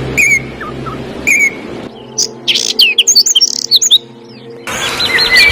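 Songbirds chirping and calling in several spliced recordings: first a short call repeated about once a second, then a burst of quick, varied chirps, and near the end a fast run of repeated high notes.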